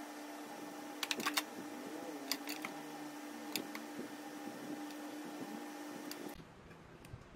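Light clicks and taps of a serving utensil against the pan and plate as stir-fried toppings are laid onto a plate of noodles, over a steady hum. There is a quick cluster of taps about a second in, a few more scattered after, and the sound drops off abruptly near the end.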